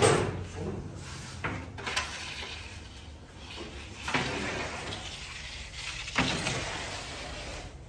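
A long wooden baker's peel knocking and scraping on the floor of a wood-fired oven as pide are loaded and shifted: several sharp knocks, each followed by a short sliding scrape.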